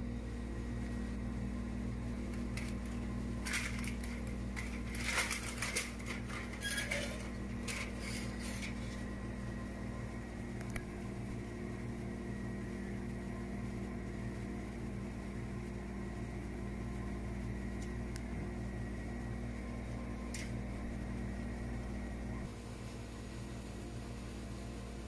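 Steady motor hum, with a few seconds of crinkling and clatter as aluminium foil is pulled off a glass baking dish of baked moussaka, then a couple of single clicks.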